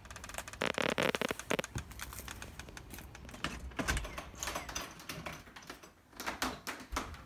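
Rapid clicks and knocks of a front storm door being opened and of footsteps coming inside, with a denser cluster of clatter about a second in.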